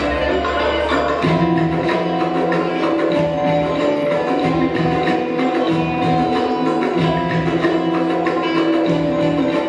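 Turkish folk dance music: a sustained melody over a steady percussion beat.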